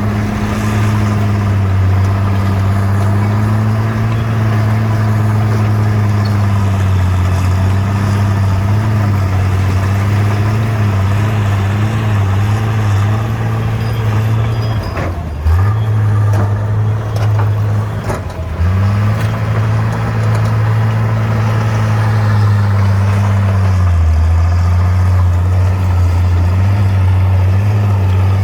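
Bulldozer's diesel engine running steadily under load. The note dips sharply twice around the middle, with a few clanks, and sags lower for a moment near the end.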